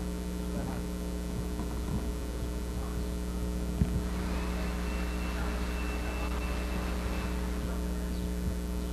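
Steady electrical mains-type hum on the recording, with a sharp click about four seconds in followed by a few seconds of hiss carrying a thin, steady high tone.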